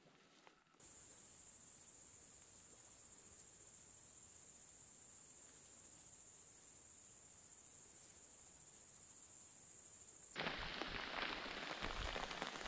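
Steady high-pitched chirring of insects, a thin even hiss. About ten seconds in it cuts off abruptly and a louder, rough pattering noise takes over.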